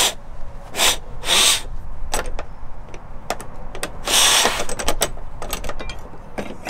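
Hands working a black steel bracket in behind the loosened rear-door striker plate of a 100 Series Land Cruiser: scattered metal clicks and taps, with a few short scraping rushes.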